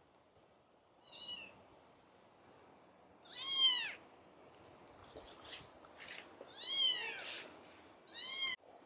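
Kittens mewing: a series of short, high-pitched mews, each rising and then falling in pitch. The loudest come about three and a half seconds in and again near the end, with a fainter one after the first second.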